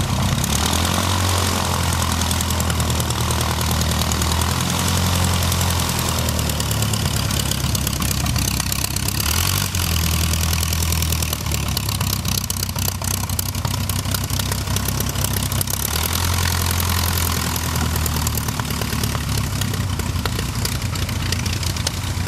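Stampe SV-4 biplane's piston engine and propeller running at low power while it taxis, a steady low drone that swells and eases a few times.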